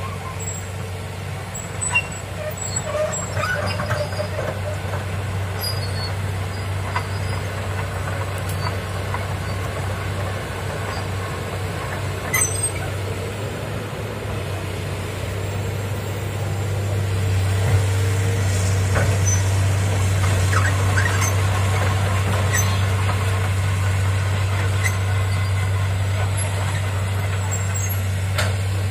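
Hitachi hydraulic excavator's diesel engine running steadily as the machine swings and travels on its tracks, growing louder a little past halfway, with occasional short clicks and squeaks.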